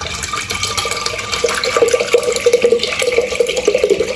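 Milk poured in a steady stream into an unglazed clay pot, splashing as the pot fills; a bubbling splash grows louder about a second and a half in.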